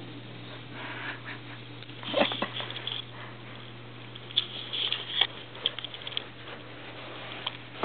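Kitten playing with catnip: irregular bursts of scrabbling and rustling with light taps, loudest about two seconds in and again midway, over a steady low hum.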